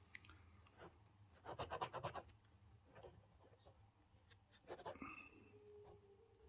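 Pen writing on a paper sketchbook page: faint scratchy strokes, with a cluster of quick strokes about one and a half to two seconds in and another short run near five seconds.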